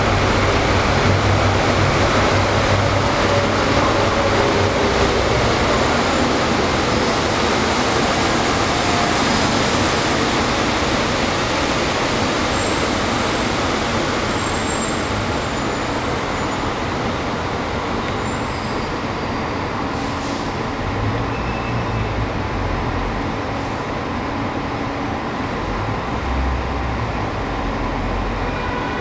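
A São Paulo Metro Line 15 rubber-tyred monorail train running along its elevated guideway, its low hum gradually fading as it moves away, over a steady hiss.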